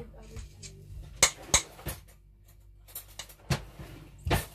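A metal fork clinking and knocking against a dish, about six sharp clinks at irregular intervals over a steady low hum.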